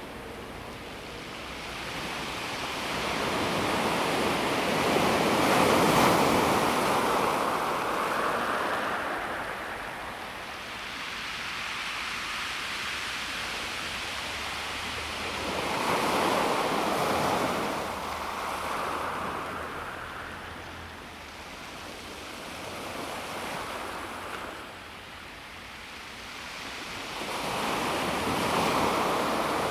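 Calm sea waves washing onto a pebble beach, three waves about ten seconds apart, each surging up and then drawing back. The first, about six seconds in, is the loudest.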